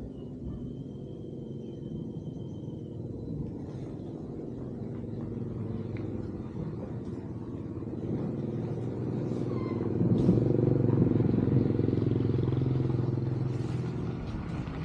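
Low engine rumble, swelling from about eight seconds in to a peak a few seconds later and then easing, like a motor vehicle going by.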